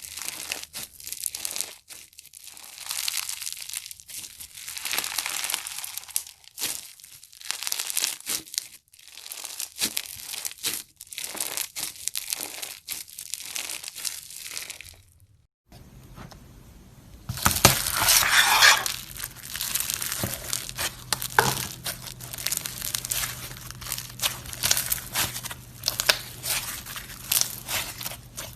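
Slime being squeezed and pressed by hand, giving dense crackling and popping clicks. Just past halfway it cuts to another clip, with a faint low hum under the crackling and a louder burst of crackling soon after.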